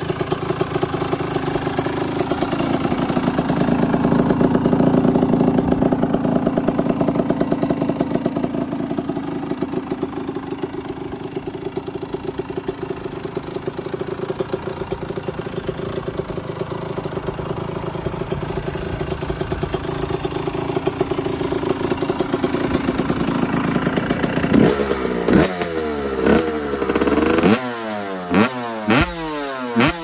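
1989 Suzuki RM125's two-stroke single-cylinder engine running steadily. Over the last five seconds the throttle is blipped sharply several times, each rev rising and falling in pitch.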